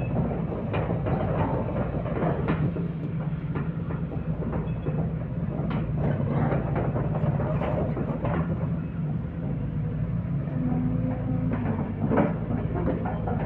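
Excavator's diesel engine running steadily while its steel tracks clank and knock irregularly as it climbs onto a lowboy trailer.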